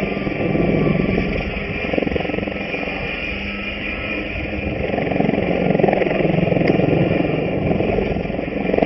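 Align T-Rex radio-controlled helicopter flying aerobatics: the rotor blades whooshing over a steady high-pitched motor whine, the whole rising and falling in loudness as it manoeuvres.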